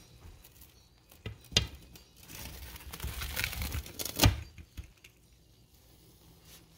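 Rolling pizza cutter slicing through a baked pizza on a pan: a stretch of scraping noise from about two to four seconds in, with a few sharp clicks, the loudest just after four seconds.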